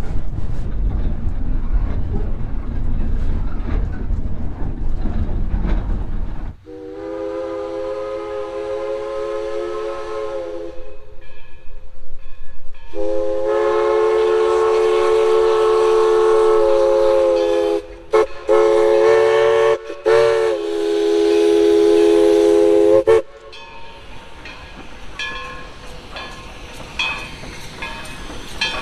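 A loud low rumble of a narrow-gauge passenger coach running along the track. Then the steam whistle of East Broad Top locomotive No. 16 sounds a chord of several tones together in blasts: two long ones, a few short ones, and a final long one. After that come quieter running sounds with clicks as the locomotive approaches.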